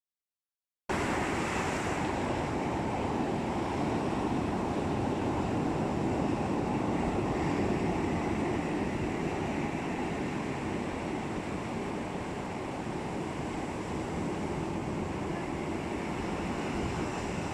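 Sea waves washing in a steady rush, with wind on the microphone; it starts suddenly about a second in after silence.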